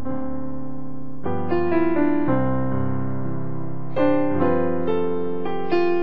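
Instrumental background music: slow, sustained keyboard chords that change every second or two.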